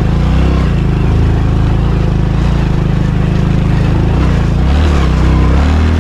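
A motor vehicle's engine running steadily with a strong low hum; its note shifts and gets heavier about five seconds in.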